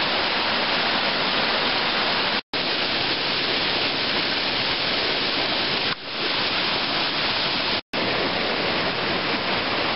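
Mountain torrent rushing steadily over rocks and icy cascades, broken by two split-second gaps, about two and a half seconds in and near eight seconds.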